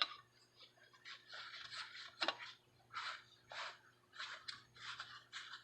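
Faint handling noises at a workbench: short scraping and rustling sounds about once or twice a second, with one sharper click about two seconds in.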